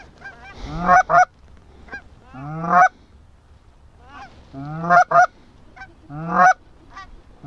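Canada goose honks, loud and repeated: each is a low note breaking upward into a higher one. They come singly and in quick pairs about once a second, with a pause of about a second and a half partway through.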